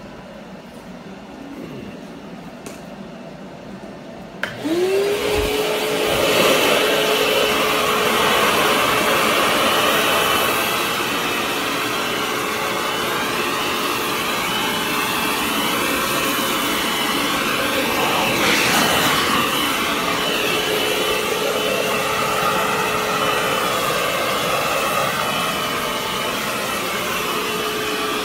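Shop vacuum switched on about four seconds in: its motor whine rises quickly and then holds a steady pitch over a loud rush of air as it sucks up loose styrofoam milling dust. There is a brief louder surge about two-thirds of the way through.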